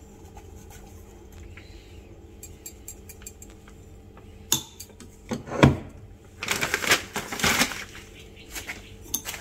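A flour packet being handled in a kitchen: a knock and then a thump about halfway through, followed by about a second of the packet crinkling. A few light clicks of steel kitchenware are heard at the start and near the end.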